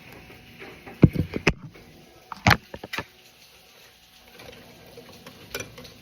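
Kitchen handling sounds: a few dull thumps about a second in, then one sharp knock near the middle followed by a few lighter clicks.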